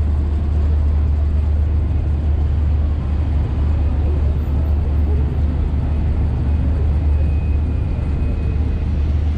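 Steady low rumble of engines and traffic, an unbroken drone with no distinct events.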